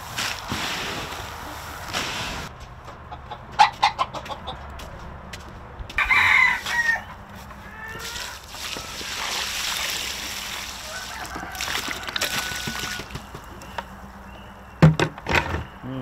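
Chickens clucking, with a rooster crowing about six seconds in and a couple of sharp knocks near the end.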